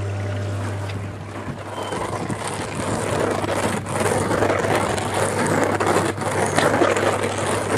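Dishwasher running just after being powered up: its pump motor gives a steady low hum while water churns and splashes inside, the splashing growing louder from about two seconds in.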